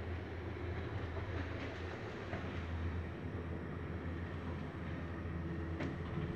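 Schindler 3300 machine-room-less passenger lift travelling upward, heard from inside the car: a steady low hum and rumble of the ride, with a few faint clicks.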